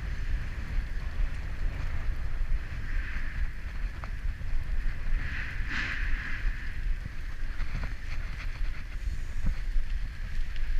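Bicycle riding on a wet paved path: wind rumbling on the camera's microphone, tyre hiss on the wet surface that swells briefly near the middle, and small clicks and rattles from the bike.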